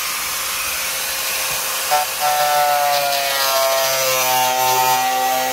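Small electric cutting tool's motor running as it cuts, starting about two seconds in with a pitch that sags a little and then holds steady, over a steady hiss.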